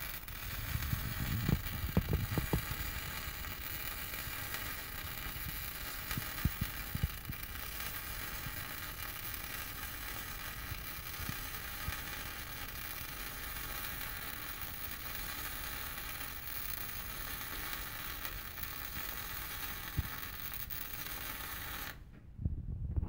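MIG welding arc burning on steel plate: a steady hiss of the wire-fed arc, with a few low thumps in the first seconds. The arc stops near the end.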